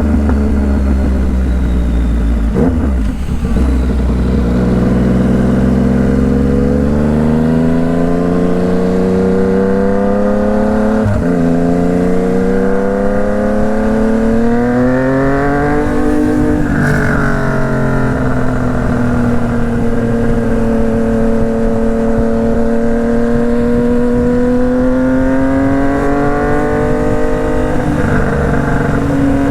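Yamaha MT-09's inline three-cylinder engine on the move, revs repeatedly climbing and falling as the bike accelerates and eases off, with the highest revs about halfway through. A low rumble of wind on the microphone is heard during the first few seconds.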